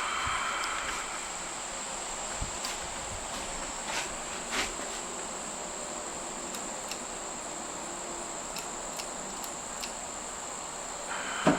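Insects trilling in a steady high-pitched drone, with a few faint clicks.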